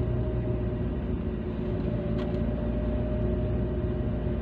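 Car driving, heard from inside the cabin: a steady low engine and road rumble with a faint steady whine over it.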